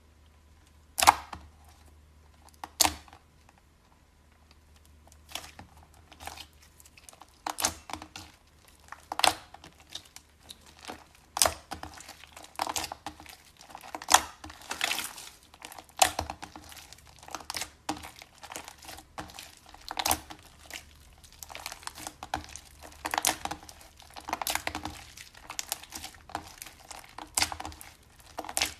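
Slime being squeezed and pressed by hand, giving off irregular crackling and popping clicks: two loud pops near the start, then denser uneven crackling.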